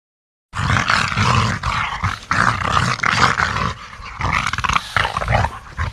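Gorilla sound effect: loud, rough growling and roaring that starts about half a second in and carries on in a run of uneven calls rising and falling in loudness.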